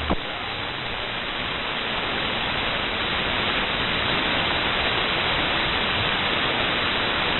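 Steady static hiss from an SDR receiver tuned to 27.025 MHz on the 11-meter band, just after a station stops transmitting, with no signal being received.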